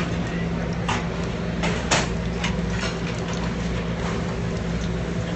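Steady drone of commercial kitchen equipment, with two short knocks about one and two seconds in.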